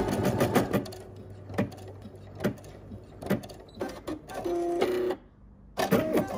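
Embroidery machine stitching a design into fabric: a quick run of needle clicks, then slower, separate stitch clicks, with a short steady hum from the machine partway through.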